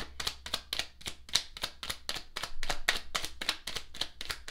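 A tarot deck being shuffled by hand: a quick run of crisp card slaps, about six or seven a second.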